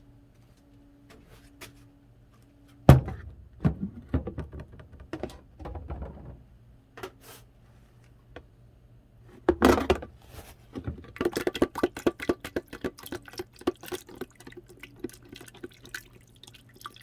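A resin 3D-printed part being rinsed in alcohol: a container or tool knocks down with a thunk about three seconds in, a few more knocks follow, then from about eleven seconds on the alcohol splashes and drips rapidly as the part is worked in it.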